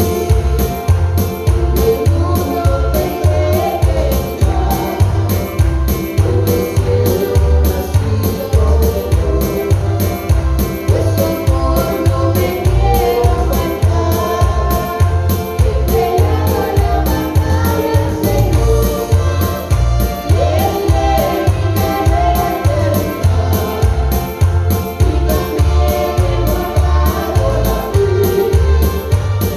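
Live Christian praise song: singing over a band or backing track with a steady beat and heavy bass.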